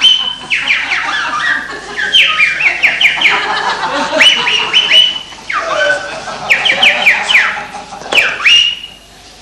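Several high-pitched voices yelling and whooping in quick, overlapping calls that slide down in pitch. They break off shortly before the end.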